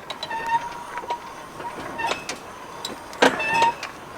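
High metallic squealing that comes and goes in short stretches, with sharp knocks about two seconds in and a louder one just past three seconds, from the camper trailer shifting as it is worked on for departure.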